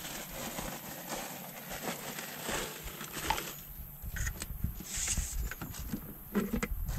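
Scattered light clicks and rustling of food being plated onto paper plates and a glass jar being handled, over a faint hiss; from about halfway a low, uneven rumble on the microphone joins in.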